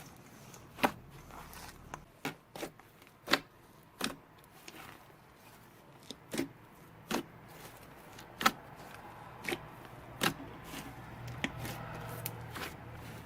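Slime being worked by hand, with about a dozen sharp, irregular clicking pops, roughly one a second.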